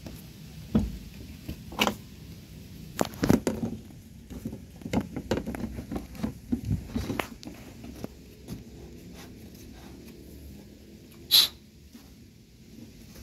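Irregular knocks and clatter of tools and parts being handled during car repair work, with one sharper, brighter click a couple of seconds before the end.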